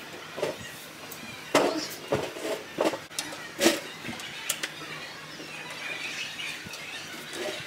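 A handful of sharp knocks and clatters as a drum and its metal hoop, fitted with a new mylar head, are handled and turned by hand. The loudest come between about one and a half and four seconds in.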